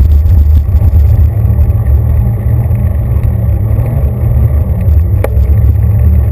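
Bicycle rolling noise: a loud, steady low rumble of the tyres and road vibration carried through a handlebar-mounted GoPro Hero 2 as the bike rides along a pavement, with one sharp click about five seconds in.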